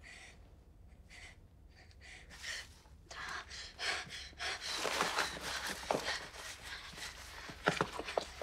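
A young woman's quick, frightened breathing and gasps, stifled behind a gloved hand, with rustling movement. A few sharp knocks come near the end.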